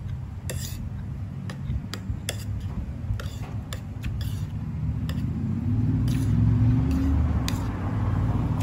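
Spoon and fork clinking and scraping against a plate as someone eats, about a dozen irregular light clicks over a low steady background rumble.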